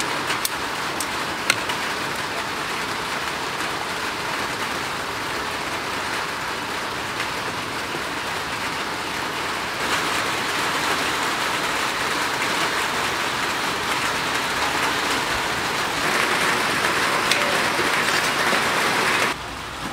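Red sauce boiling hard and sizzling in a wok around a whole Muscovy duck, a steady hiss like rain, with a few sharp clicks of metal tongs against the wok near the start. The hiss gets louder about ten seconds in and again a few seconds later, then cuts off just before the end.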